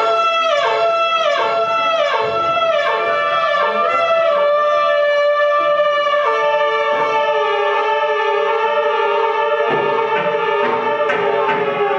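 Live experimental band music: a loud, reedy, harmonic-rich drone that slides down in pitch again and again, a little under twice a second, then settles into steady held notes about halfway through.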